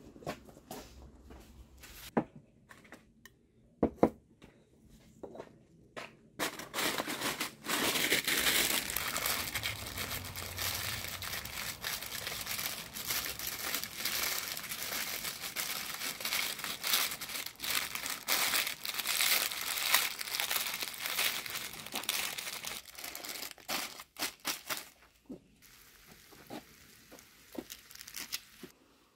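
Baking paper being handled, crinkled and folded: a few light taps at first, then dense paper crinkling from about six seconds in, which thins out to scattered rustles near the end.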